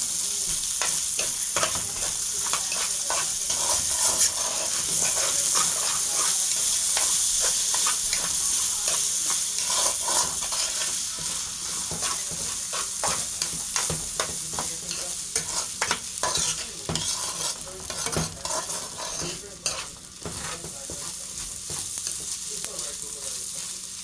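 Rice frying in oil and melted butter in a pot, sizzling while it is stirred, with many short scrapes and knocks of the utensil against the pot. This is the rice toasting before the water goes in. The sizzle eases off in the later part.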